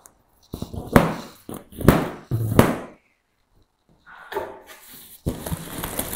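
Cardboard shipping box being handled and opened: three knocks about a second apart, then after a short pause a longer rustle of cardboard near the end.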